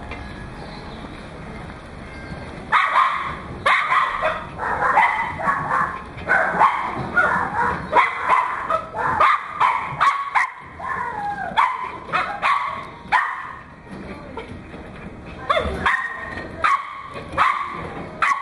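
A dog yipping and barking in quick, high bursts, starting about three seconds in and going on with a short lull toward the end.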